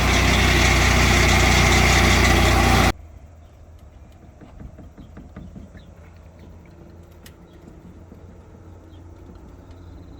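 Portable swingblade sawmill's engine running hard, loud and steady, which breaks off abruptly about three seconds in. A much quieter low engine hum with a few faint clicks follows.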